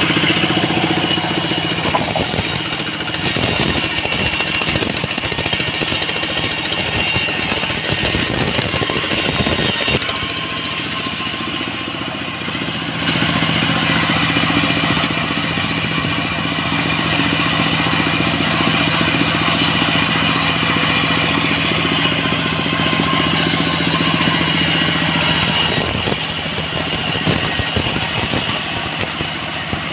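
Engine-driven band sawmill running steadily while ripping dried salam (Indonesian bay leaf) wood into beams: a constant engine hum mixed with the blade's cutting noise. The sound drops about ten seconds in and comes back fuller around thirteen seconds.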